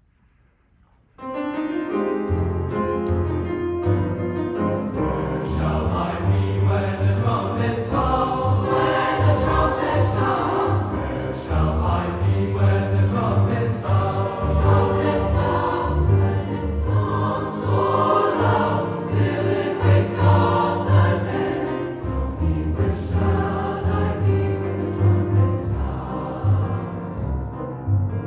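Large mixed high school choir singing with string orchestra and piano accompaniment, starting suddenly about a second in.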